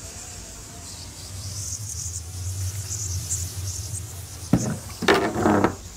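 Old wooden door knocked at about four and a half seconds in, then rattled and scraped open for most of a second. A low steady rumble and a faint high chirring run underneath.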